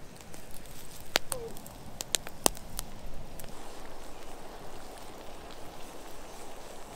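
Wood campfire crackling, with a handful of sharp pops in the first few seconds over a steady hiss.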